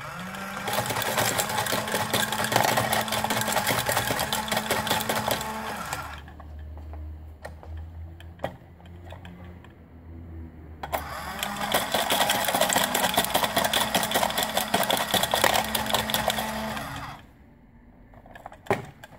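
Choken Bako coin-eating dog piggy bank running its small battery-powered motor and plastic gears: a fast mechanical rattle with a steady hum as the dog's head bobs down to 'eat' a coin. It runs twice, each time for about five seconds, with a quieter pause between while the next coin is put in the bowl.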